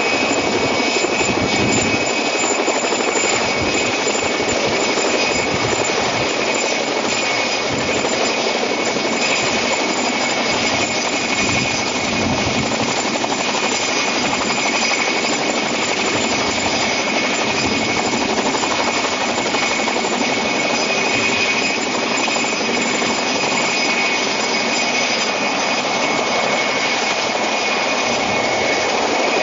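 Helicopter running steadily: a dense, unbroken engine and rotor noise with a steady high whine over it.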